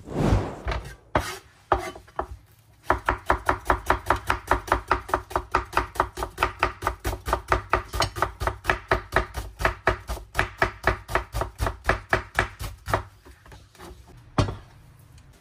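A cleaver chopping an onion on a wooden cutting board in quick, steady strokes, about four a second. A short swoosh comes at the start, and the chopping stops a couple of seconds before the end.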